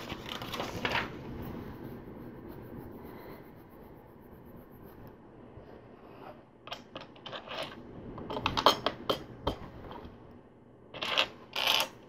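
Plastic LEGO bricks clicking and clattering as hands sift through a pile of loose pieces and press them onto a model: bursts of sharp clicks past the middle, with two louder rattles near the end.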